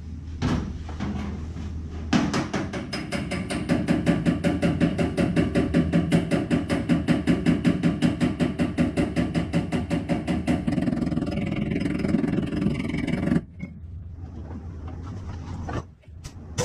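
Rapid, even mechanical hammering on the dented sheet-metal side panel of a Toyota Tundra while it is straightened under chain pull. It starts about two seconds in, runs at several blows a second with a metallic ring, and stops abruptly a few seconds before the end.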